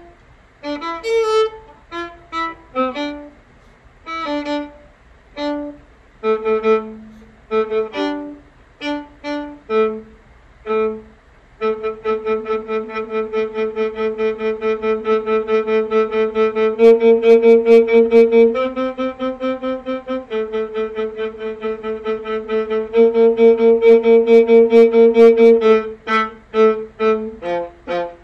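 Solo viola playing: short detached notes with gaps for the first dozen seconds, then a long run of rapid repeated bow strokes on a few held pitches, going back to separate short notes near the end.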